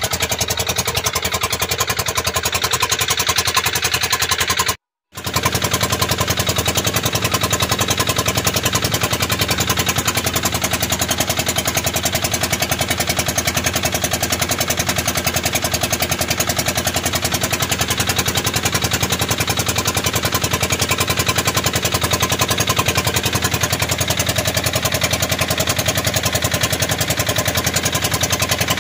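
Engine of a motorized outrigger boat (bangka) running steadily under way. The sound cuts out for a split second about five seconds in.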